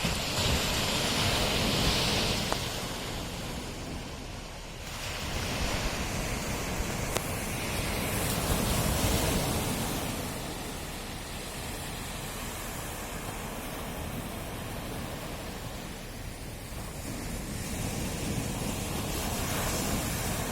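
Sea waves washing in: a steady rushing surf that swells louder three times, at the start, about halfway through and near the end.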